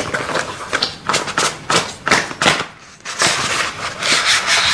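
Cardboard product box being handled and opened: a series of taps and small clicks of fingers on the box, then a rubbing scrape from about three seconds in as the inner tray slides out of its sleeve.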